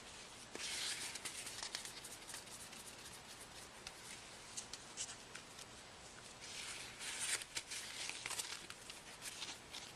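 Faint rubbing of a cloth being wiped over a phone's exposed LCD to clear debris, swelling in two stronger strokes about a second in and around seven seconds, with small clicks and taps of handling between.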